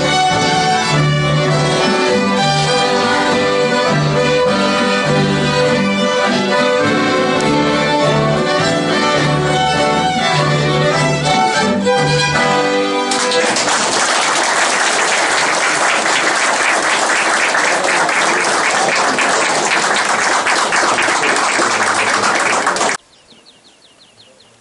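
Folk fiddle ensemble of several violins with a double bass playing a tune that ends about halfway through. The audience then applauds steadily for about ten seconds. Near the end the sound cuts off suddenly to a faint background.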